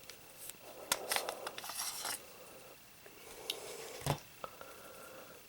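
CZ 75B Retro 9mm pistol being worked by hand: a string of small metallic clicks and scrapes from its controls and parts, with one sharper knock about four seconds in.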